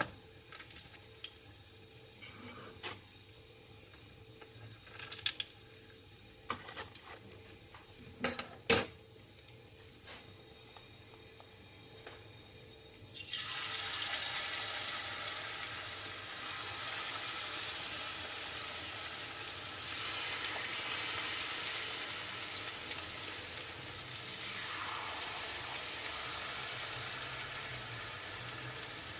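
Light clicks and taps of utensils against a frying pan, the sharpest about nine seconds in. About 13 seconds in, a steady sizzling starts as batter-coated squash flowers go into hot oil, and it swells again twice.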